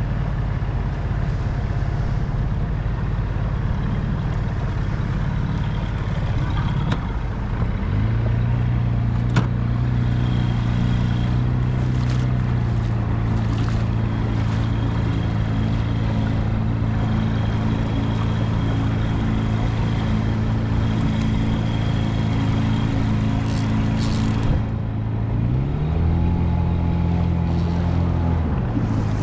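Small outboard motor running steadily as it pushes an inflatable dinghy. Its pitch steps up about seven seconds in, rises again briefly near the end, then drops back.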